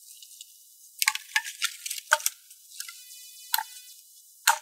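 Dry wooden boards and sticks cracking and splintering as they are broken up for firewood. About eight sharp cracks come at irregular intervals, and the loudest is near the end.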